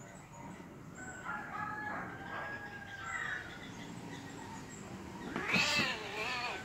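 Domestic cats yowling in a fight: long, drawn-out wavering yowls, then a much louder screeching yowl about five and a half seconds in as one cat pounces on the other.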